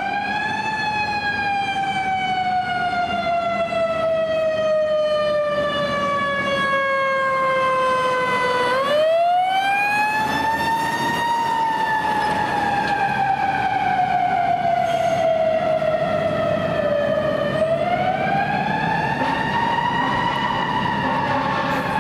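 Fire truck siren wailing: the tone rises quickly and then falls slowly, three times, with rises at the start, about nine seconds in and about eighteen seconds in. Traffic noise runs underneath.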